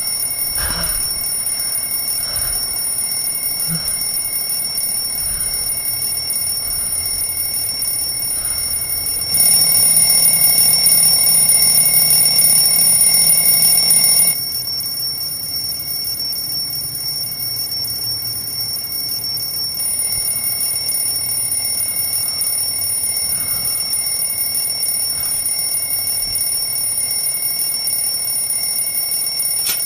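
An alarm ringing without a break: a steady, high-pitched ring, louder for about five seconds near the middle.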